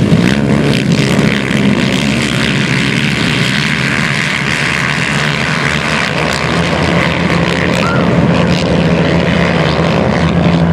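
Racing quads (ATVs) running hard on a motocross track, several engines droning together. The drone eases a little in the middle and grows louder again near the end.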